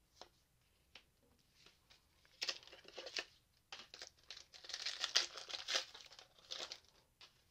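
Foil wrapper of a Pokémon TCG Chilling Reign booster pack crinkling and tearing as it is opened by hand, in irregular bursts that start about two seconds in.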